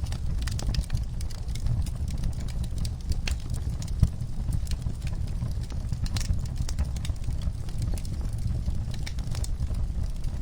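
Wood fire in a fireplace crackling: irregular sharp pops and snaps over a low steady rumble, with one louder pop about four seconds in.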